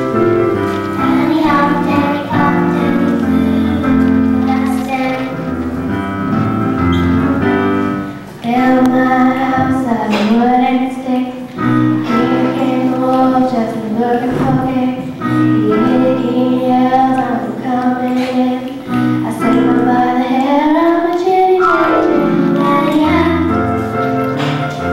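Music: a group of young voices singing a song over instrumental accompaniment. The first several seconds are accompaniment alone, and the voices come in about eight seconds in.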